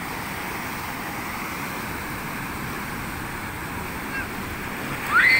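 Ocean surf breaking and washing up a sandy beach in a steady rush. Near the end a loud, high shout that rises in pitch cuts in.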